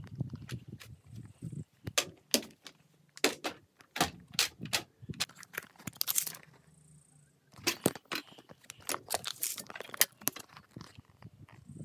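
An irregular series of sharp clicks and knocks with low handling rumble, thickest around the middle and again over the last few seconds.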